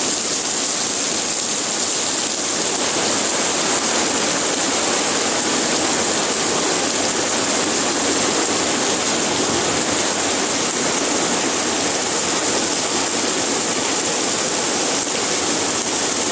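Steady, heavy rainfall: a dense, even hiss of falling rain that holds at one level throughout.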